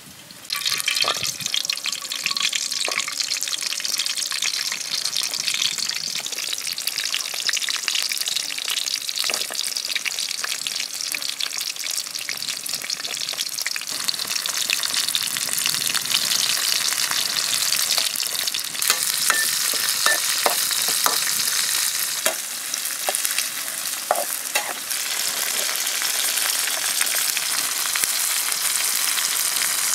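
Garlic and shallots, and later snake pieces with herbs, sizzling in hot oil in a steel wok. The sizzle jumps up loudly about half a second in and keeps on steadily, with many scattered small pops and clicks.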